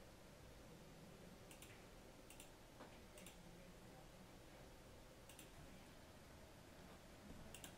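A handful of faint computer keyboard key clicks, spaced a second or more apart, over near-silent room tone.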